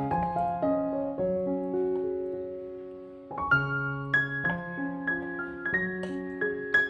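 Background piano music: a slow melody of held notes that fades down about three seconds in, then picks up again with a new phrase.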